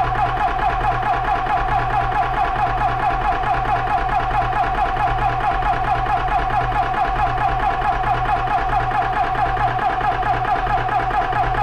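Benjamin Traveler 4500 PSI portable PCP air compressor running under load, its piston pumping with a fast, even pulse and a strong steady hum, as it charges an air rifle at high pressure.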